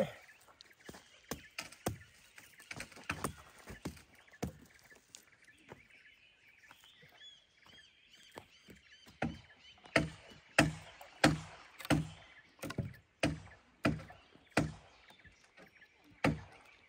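Footsteps and twigs crackling on dry, burnt ground, then from about nine seconds in a run of evenly spaced strikes against a charred log, about one and a half a second, the loudest sounds. A bird chirps briefly in between.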